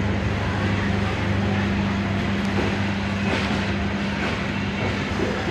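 Passenger train coaches rolling slowly along the platform track, a steady low hum under the noise of the wheels.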